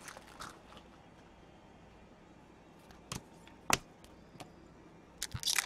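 Quiet handling of trading cards and their packaging: a couple of sharp clicks in the middle, then a rustling crinkle of a card-pack wrapper starting near the end.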